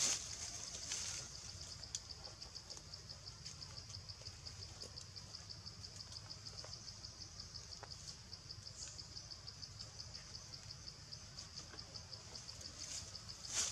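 An insect calling with a steady, high-pitched pulsing trill at a fast, even rate, with a few faint clicks here and there.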